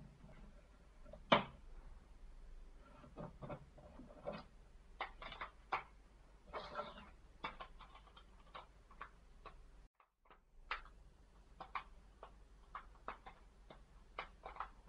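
Scattered small plastic clicks and taps as a Samsung Galaxy Trend GT-S7560 phone is put back together: a screwdriver working the midframe screws, then the plastic back cover pressed and clicked into place. One sharper click stands out about a second in.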